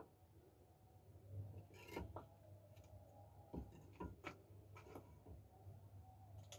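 Near silence: a faint steady low hum, with a handful of faint clicks and knocks through the middle.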